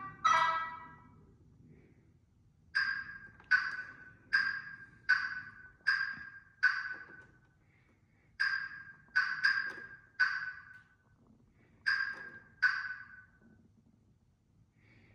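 NIU MQi GT scooter's turn-signal sound beeping: short ringing chime tones that fade quickly, about one every 0.7 s, in a run of six, then four, then two, with pauses between as the blinker switch is flicked right and left to cycle through the selectable blinker sounds.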